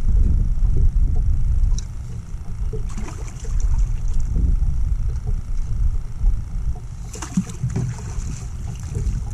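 Wind buffeting the microphone in a steady low rumble, with two brief noisy bursts about three and seven seconds in.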